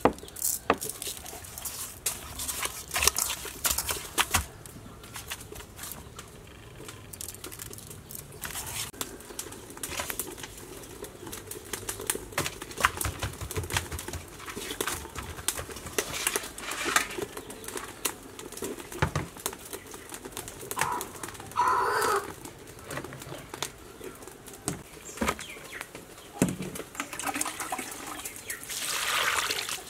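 Hands rubbing salt and seasoning into whole red-tail fish in a metal bowl, with scattered clicks and knocks against the bowl. Near the end comes a rising hiss as water starts to pour into a bowl of greens.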